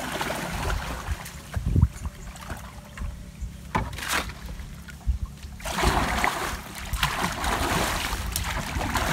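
River water splashing and sloshing around a man wading waist-deep as he hauls a fishing net beside a boat, with a thump about two seconds in. The splashing grows heavier from about six seconds in.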